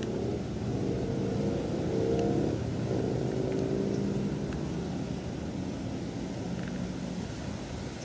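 A car passing by: engine and road noise that grows to a peak about two seconds in, then slowly fades to a steady rumble.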